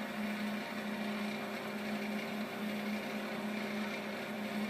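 Wood lathe running with a steady hum, a towel held against the spinning spindle to buff off a wax-like finish.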